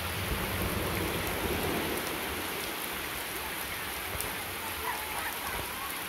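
Steady rain falling, an even hiss, with a low rumble during the first couple of seconds.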